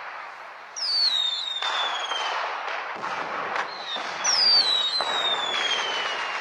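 Dense crackling noise with two whistles that each slide steadily downward over about a second and a half, the second starting about three and a half seconds after the first.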